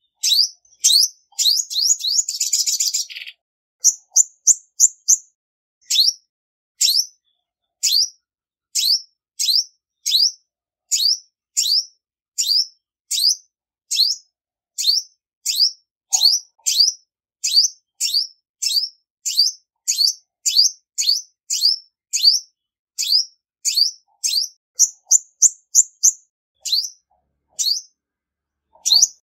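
Female olive-backed sunbird calling: a steady series of sharp, high chirps, about two a second, with a short buzzy trill near the start and a few quick runs of notes.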